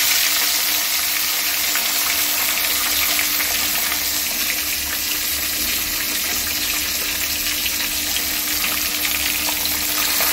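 Fish pieces frying in hot oil in a kadai: a steady sizzle with fine crackling throughout.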